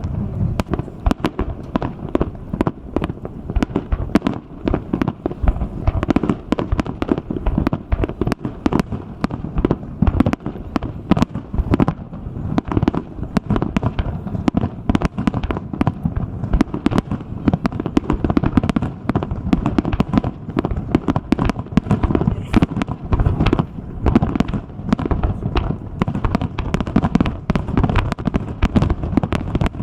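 Fireworks display: a dense, unbroken barrage of aerial shell bursts, many bangs a second.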